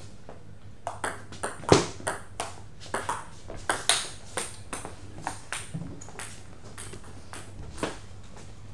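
Table tennis rally: the ball clicking sharply off the bats and the table in alternation, about two to three hits a second for some four seconds, then a few scattered taps.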